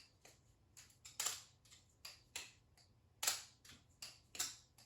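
Balisong (butterfly knife) being flipped open and closed over and over: a run of sharp, irregular clicks, about a dozen, with louder clacks every second or so as the blade knocks against the knuckles.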